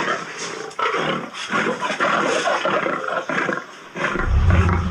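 Lions roaring and growling in a fight, in ragged bursts, with a deep, loud rumble coming in about four seconds in.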